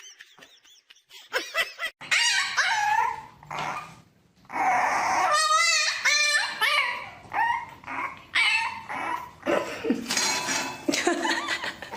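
A dog whining and yipping in a string of short cries that rise and fall in pitch, after a quiet first couple of seconds.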